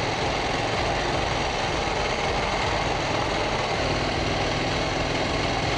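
KTM 790 Duke's parallel-twin engine running steadily while riding, mixed with wind noise on the microphone.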